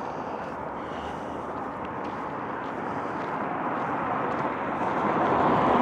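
A passing vehicle: a steady rushing noise that slowly grows louder as it approaches.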